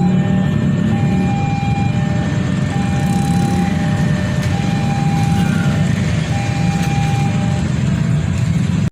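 Train passing close by with a loud, steady rumble. A thin tone repeats about every second and a half above it.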